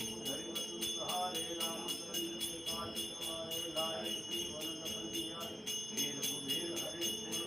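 Devotional music with metal bells ringing and a steady rhythmic jingling of about five strokes a second, over a held drone and a melody.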